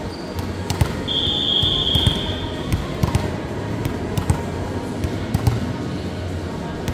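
A ball bouncing on a hard court floor, a run of irregular sharp thuds, with one long steady whistle blast about a second in.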